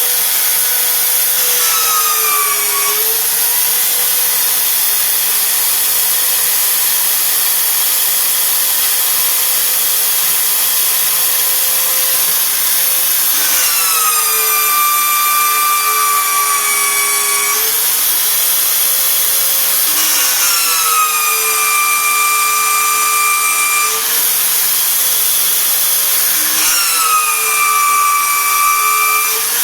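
Evolution magnetic drill running with a 5/8-inch bit boring into half-inch steel plate: a loud, steady motor whine that sags a little in pitch each time the bit bites, with a high squealing cutting tone over it in four spells of a few seconds.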